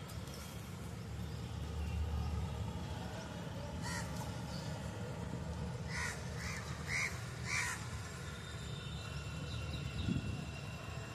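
A crow cawing: one call about four seconds in, then four calls in quick succession about half a second apart. Under the calls runs the low, steady hum of the paddle-wheel lake-cleaning boat's engine, with a brief low thump near the end.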